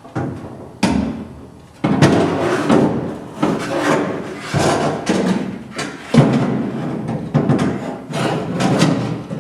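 Steel window regulator parts of a 1966 Chevelle quarter window clanking and rattling against the sheet-metal body as the regulator is worked into place, a run of sharp knocks and scrapes.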